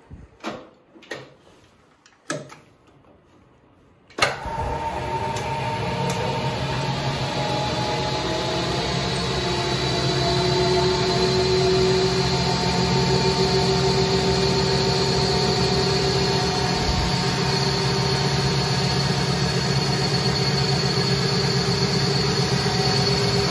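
A few sharp clicks and knocks, then about four seconds in a Boxford AUD lathe is switched on: the motor and headstock run up and keep running steadily with a constant hum and whine, its empty chuck spinning. It cuts off and begins to wind down at the very end.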